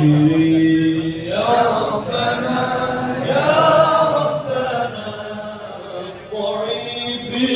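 Men's voices chanting an Arabic Islamic devotional chant without instruments, in long drawn-out notes that slide from one pitch to the next.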